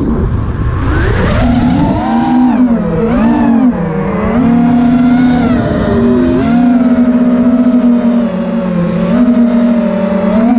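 FPV quadcopter's brushless motors and propellers whining, the pitch following the throttle: low at first, climbing about a second in, dipping and rising several times, then holding fairly steady, with a rushing noise underneath.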